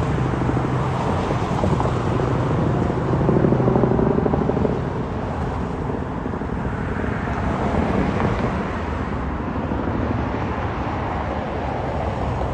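Robinson R44 piston-engined helicopter passing by: a steady rotor beat and engine note, easing off somewhat about five seconds in as it moves away.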